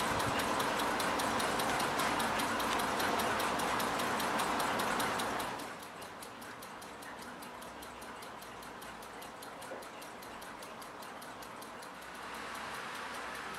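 Carriage clock's platform lever escapement ticking rapidly and evenly as the balance swings on its newly fitted balance staff. A steady hiss underneath drops away about five seconds in, leaving the ticking fainter.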